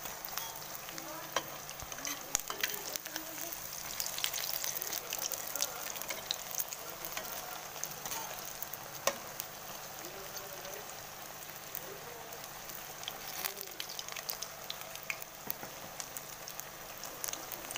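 Battered tempeh slices deep-frying in hot oil in a wok: a steady sizzle with frequent sharp crackles and pops, and a metal spatula now and then stirring and tapping against the pan.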